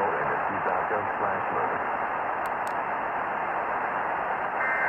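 Steady hiss and static of an AM radio broadcast, cut off above about 3 kHz, under a voice reading out the end of an emergency alert. Near the end a short burst of buzzing two-tone EAS data tones begins: the first of the end-of-message bursts that close the alert.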